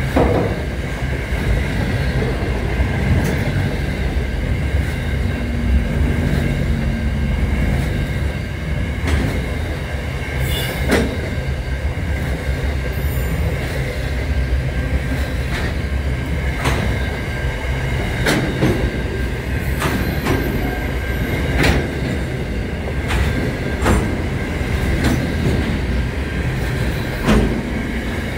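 Container freight train's wagons rolling past close by: a steady rumble of steel wheels on rail, with sharp clacks every second or two as wheels cross rail joints and a steady high whine over the top.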